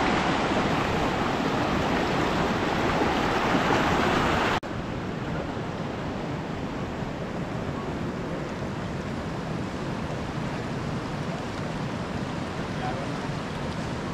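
Fast-flowing water rushing steadily in a strong current. About four and a half seconds in it cuts abruptly to a quieter, steady rush.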